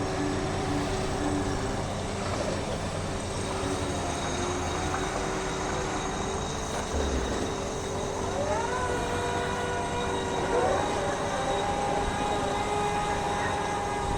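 Steady mechanical din of heavy machinery at a railway station. Whining tones rise about two-thirds of the way in, then hold steady to the end.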